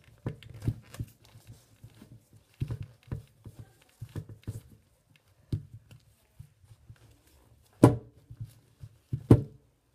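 Close-up handling noise as hands work a doll's long hair and hair ties near the microphone: irregular soft knocks and rustles, with two loud bumps about a second and a half apart near the end.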